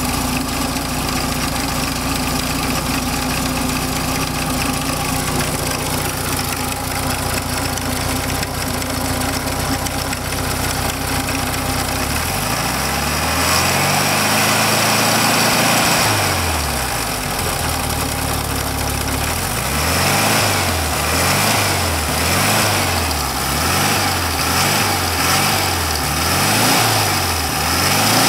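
VW Beetle 1300's air-cooled flat-four engine idling steadily, then revved up, held high for a couple of seconds and let back down, then blipped in quick revs about once a second near the end. The owner hears a strange noise in it and is unsure whether it comes from the cooling fan or the generator.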